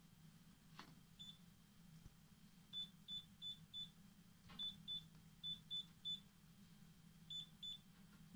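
Candy washing machine control panel giving short, high key beeps as its settings are changed: about a dozen beeps in quick runs, with a couple of faint clicks.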